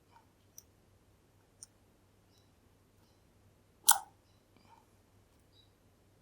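Lock-picking tools clicking against the pins of a Kale Kilit 10-pin dimple lock: a few faint ticks, then one sharp, much louder click a little under four seconds in.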